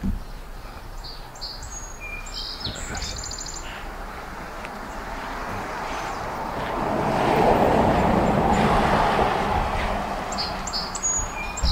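Small birds chirping on and off, with a broad rushing noise that builds over several seconds, is loudest a little past the middle, and then fades.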